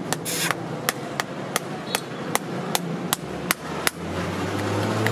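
Small hammer tapping on a metal horseshoe held against a horse's hoof, about ten quick sharp strikes at a steady pace of roughly two and a half a second, stopping about four seconds in. A low steady hum rises near the end.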